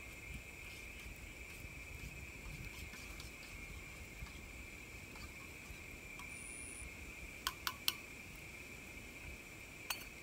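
Steady high-pitched insect drone. A metal spoon clinks against a steel cup three quick times about seven and a half seconds in, and once more near the end.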